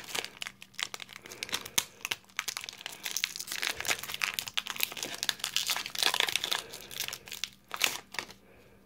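Irregular crinkling and rustling from handling an opened foil Pokémon booster pack and its cards, dying down near the end.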